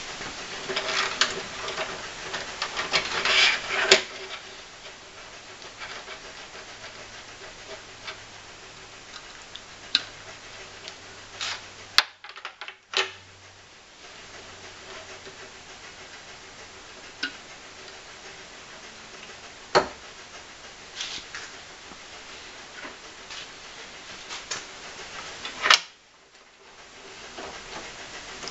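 Gloved hands handling a car horn and its wiring: rustling and scraping, busiest in the first few seconds, with scattered sharp clicks and knocks over a faint steady hum.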